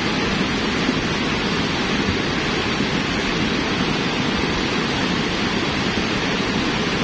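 Lahar from Mount Semeru, a volcanic mudflow of ash-laden water, rushing down a river channel: a steady, loud rumble of churning torrent.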